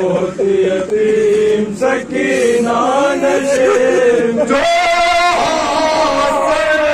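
A man chanting a noha, a Shia mourning lament, into a microphone in a wavering, grief-stricken voice, then holding one long high note from about halfway through.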